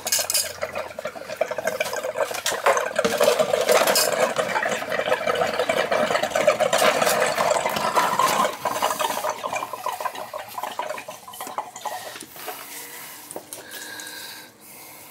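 Clattering and scraping of pliers, a pipe fitting and a plastic tub on a wet tile floor, with water splashing as a radiator pipe is opened and drained. The sound is busiest for the first eight seconds or so, then thins to scattered knocks.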